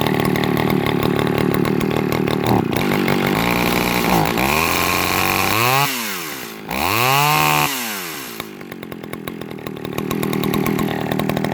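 John Deere 55V (Echo CS500) two-stroke chainsaw engine, fitted with a fresh carburettor kit, idling steadily. About four seconds in it is revved up and down twice, then drops back to a smooth idle.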